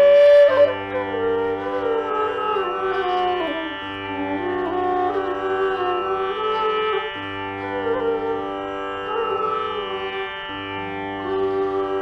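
Bamboo bass bansuri in G playing a slow Indian classical melody that glides between notes. It opens on a loud held high note, then winds down in bends and slides. Underneath runs a steady drone from an electronic tanpura.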